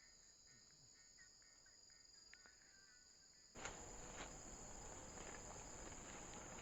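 Crickets and other insects chirring in a steady, high, continuous drone. About three and a half seconds in, the background suddenly gets louder with an added noisy hiss.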